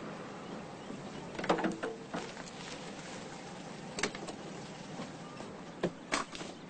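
Car door handling on a stopped car: a few sharp clicks and knocks of the door latch and door, spread out, with the loudest cluster about a second and a half in.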